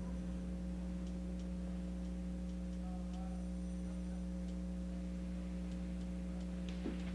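Steady low electrical mains hum, with a few faint ticks.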